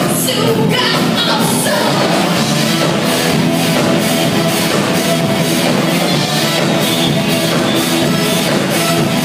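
Rock band playing live and loud: electric guitars, bass guitar and a drum kit with a steady cymbal beat.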